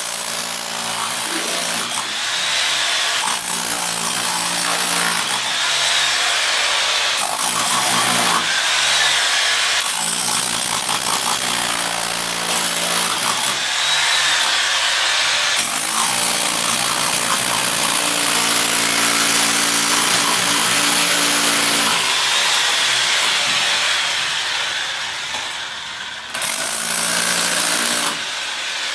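Electric power tool running under load in several stretches with short breaks. The motor's pitch dips and recovers as it works the material.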